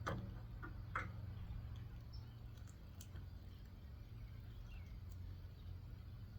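A few scattered clicks and light knocks of hand tools working on a small salvaged transformer, the sharpest about a second in, over a steady low hum.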